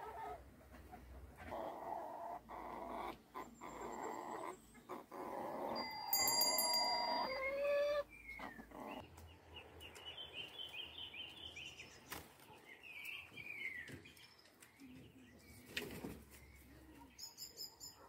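Domestic hens calling with low clucks. About halfway through, small birds chirp in quick series.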